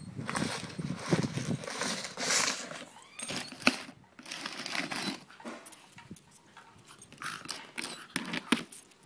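A clear plastic tub scraping and rattling on concrete as a Jack Russell terrier noses and paws at it, an irregular scratchy noise with many small clicks and one sharp click a little before the middle.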